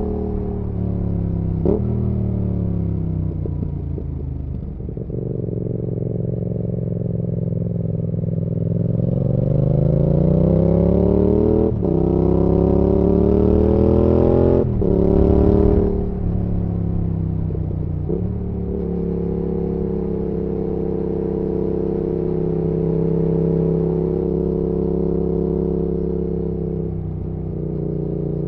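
Yamaha XSR700's parallel-twin engine running through an IXRACE MKII aftermarket exhaust. The engine note falls off the throttle, then climbs hard through a couple of quick gear changes, each a brief break in the rising note. It then settles into a steady cruise.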